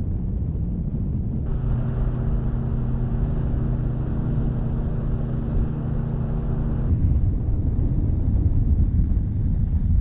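Outboard motor of a bass boat running at speed, with low wind rumble on the microphone. A steady engine tone comes through strongly from about a second and a half in until about seven seconds in, then fades back into the rumble.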